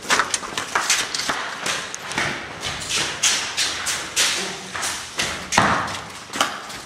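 Hurried footsteps on a concrete floor: an uneven run of thumps and scuffs, about two or three a second.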